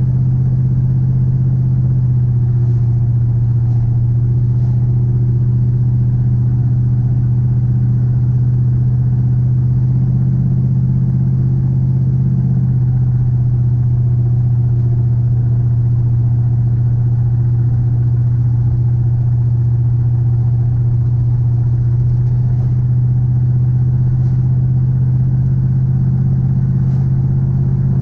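Vehicle engine and road noise heard from inside the cab while driving at a steady speed: a constant low drone that does not rise or fall.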